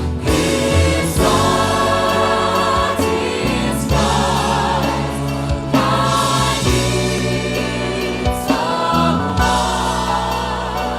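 Gospel choir singing in harmony over instrumental backing with a steady beat.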